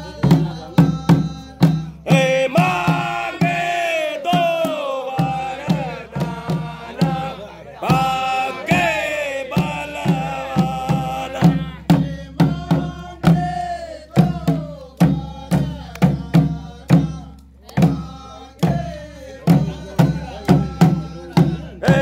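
Dhol and damau drums of Uttarakhand beating a steady rhythm while a group of men sing a Holi folk song. The singing comes in stretches, strongest a couple of seconds in and again about eight seconds in.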